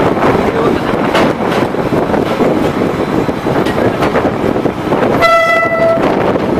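A DEMU commuter train running along the track, heard from beside the carriage, with scattered clicks over its steady running noise. About five seconds in, the train's horn gives one short single-tone blast lasting under a second as it nears a level crossing.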